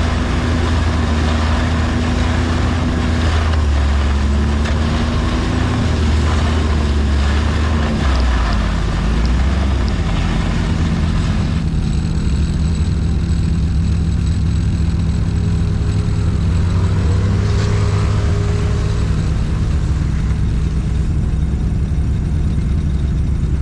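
A vehicle engine running steadily under load, its pitch dropping a little about eight seconds in.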